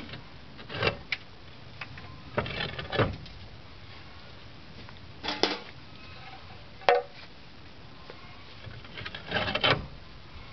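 Frankfurter Pfanne concrete roof tiles clacking and scraping against each other and the roof battens as they are lifted out and set back in, heard as a handful of separate short knocks and rattles, with a longer cluster near the end.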